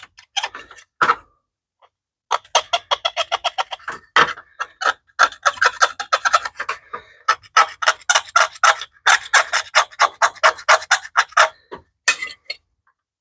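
A small hand tool scraping caked grime off a BMW E30 motor-mount heat shield in quick repeated strokes, about five a second. The strokes come in runs broken by short pauses.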